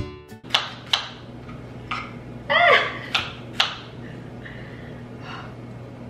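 Kitchen knife chopping an onion on a cutting board: about five sharp, irregularly spaced chops. A short voiced exclamation comes about halfway through, over a low steady hum.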